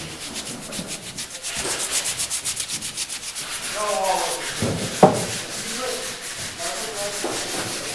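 Sandpaper rubbed back and forth by hand on the wooden kayak hull in quick regular strokes, about six a second. A single sharp knock is heard about five seconds in.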